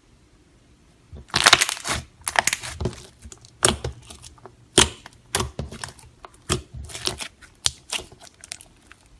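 Slime being squeezed and poked by hand, giving a quick run of sharp crackles and pops that starts about a second in and stops shortly before the end.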